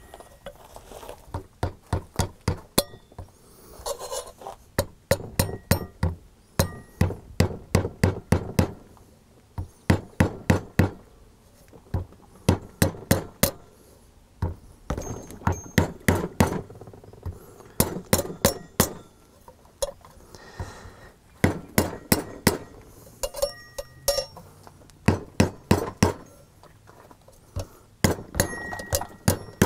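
Small hammer tapping on a steel wrench and drift set over a new dust seal, driving the seal into a motorcycle rear wheel hub. It goes in quick runs of light metallic taps with short pauses between runs, and some strikes leave a brief ring.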